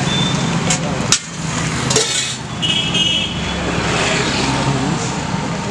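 Roadside traffic noise with a steady low engine hum. There are two sharp knocks about a second in and a brief high-pitched tone near the middle.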